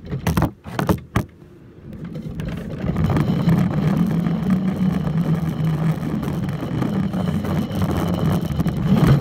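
A few handling knocks, then the plastic wheels of a backyard toy roller coaster cart rumbling steadily along its plastic track.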